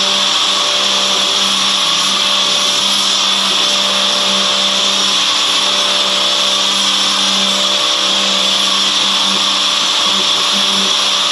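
Pressure washer running steadily: a loud, even spray hiss over the constant hum of its motor and pump.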